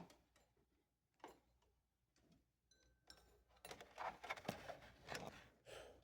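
Mostly quiet, with a couple of faint clicks, then a short stretch of rustling and scraping in the second half: things being handled while phone wire is pulled and checked.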